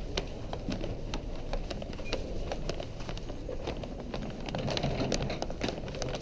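Footsteps walking at a steady pace, sharp clicks about two or three a second, over the low rumble of a busy terminal hall.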